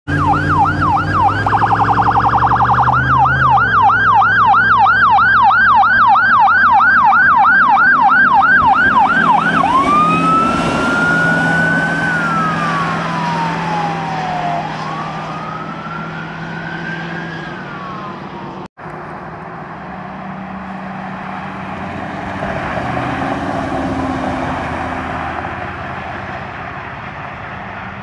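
Electronic sirens on fire department brush trucks responding to a call. A rapid warble changes to a fast yelp, and about ten seconds in it switches to a slow rising-and-falling wail that fades as the trucks drive away.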